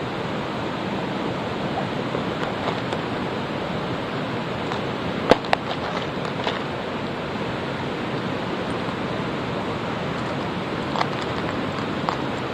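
Mountain stream rushing steadily, with a few sharp clicks and taps over it, the loudest about five seconds in.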